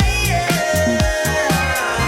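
Background music: an upbeat pop/funk track with a steady beat, bass line and held melody notes.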